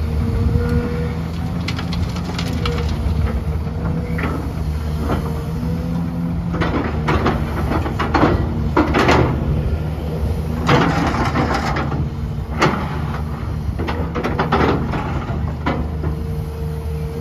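Heavy diesel engine of an XCMG XE265CT crawler excavator running steadily, with repeated bursts of scraping and rattling from the bucket digging and loading, most of them in the middle of the stretch.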